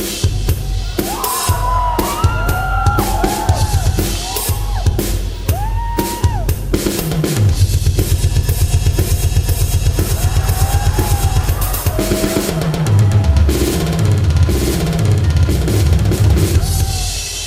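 Loud recorded music driven by a drum kit. In the first few seconds short whistle-like sound effects slide up and down; a fast drum roll follows about seven seconds in, then a stepping bass pattern. The music drops away right at the end.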